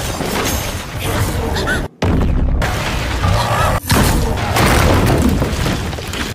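Anime battle soundtrack: loud booming, crashing impact effects over music, cut off briefly twice, about two and four seconds in.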